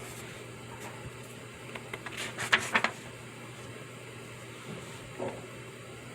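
Pencil scratching on paper in a quick flurry of short strokes about two seconds in, with a softer stroke near the end, over a steady hiss of background noise.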